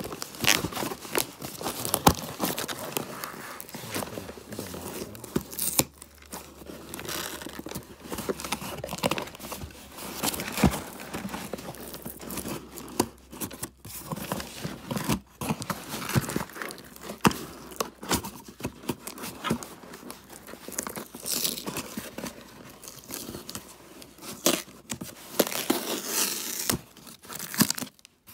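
Clear plastic packing tape being ripped and peeled off a cardboard shipping box, with the cardboard flaps scraping and crinkling: a long, irregular run of rips and sharp clicks.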